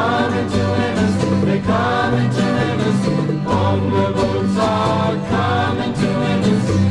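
Music: a folk vocal group singing in harmony over instrumental backing with a moving bass line.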